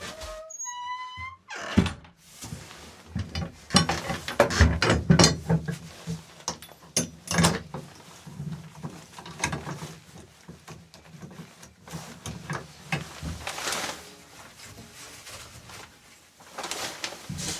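Irregular knocks, clatter and thuds, loudest about four to eight seconds in and again around thirteen seconds. Just before them comes a brief pitched call.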